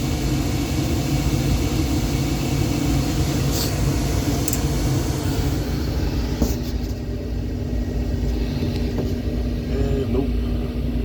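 Gas furnace running through a heat call with its blower motor failing to start, a steady low rumble; the blower motor is dead. About six and a half seconds in there is a click, after which the hiss drops away and a steady hum remains.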